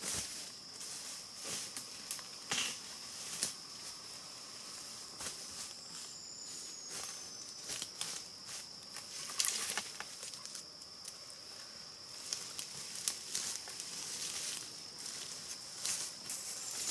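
Outdoor forest sound: a steady high-pitched insect drone with many scattered clicks, crackles and rustles over it.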